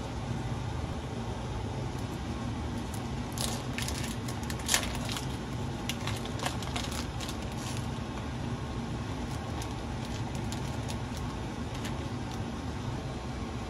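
Foil-paper wrapper of a wheel of brie crinkling as it is peeled open: a run of crackles and clicks a few seconds in, with one sharper click, over a steady low hum.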